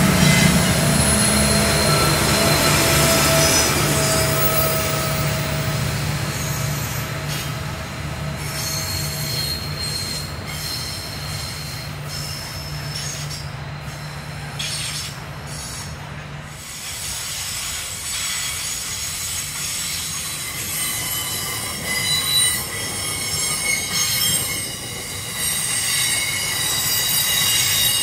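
A freight train's diesel locomotives run steadily as they climb a grade, their low drone ending about two thirds of the way through. Container wagons then roll past with high-pitched wheel squeal, which grows stronger in the second half.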